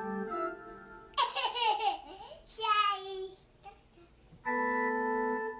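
Sustained organ chords at the start and again about four and a half seconds in, with a young child laughing in high-pitched bursts twice in between.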